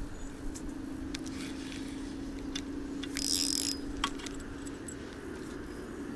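Spinning reel cranked to retrieve a lure, a steady whir that stops about five seconds in, with scattered light clicks and a brief hiss about three seconds in.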